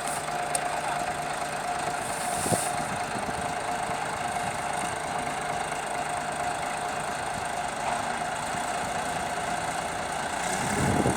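Bulldozer's diesel engine running steadily, with a short knock about two and a half seconds in and a louder thud near the end.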